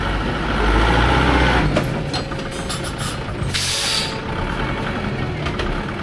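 Heavy truck engine running, louder in the first second and a half, then a short hiss of released air from the air brakes about three and a half seconds in.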